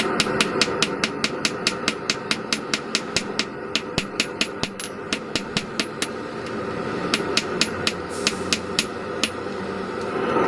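Rapid, evenly spaced hammer blows on a bar of hot medium-carbon steel, about five a second, forging the head of a claw hammer. The blows pause briefly twice and stop a little before the end.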